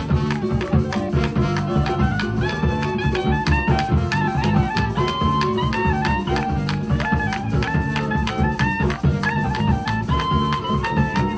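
Live Colombian mapalé music: clarinet and trombone playing the melody over drums and shakers keeping a fast, even beat.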